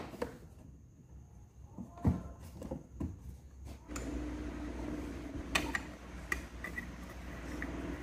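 Scattered light knocks and clicks of plastic and metal parts being handled: a flange and a green cutting disc being fitted onto the motor shaft inside a PVC box. A steady low hum comes in about halfway through.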